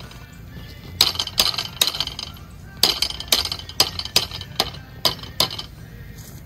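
Hammer striking a steel brace pin, driving it through a drilled hole in a wooden fence post: about ten sharp metallic hits that ring, in a run of three and then a run of seven after a short pause.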